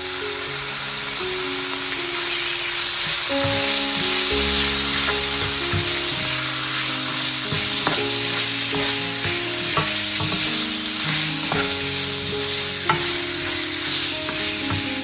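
Cubes of raw pork belly sizzling in hot oil with garlic and onion in a nonstick frying pan. A spatula stirs them, with short scrapes and clicks against the pan.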